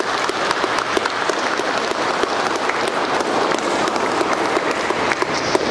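Congregation applauding, many hands clapping in a dense, even patter.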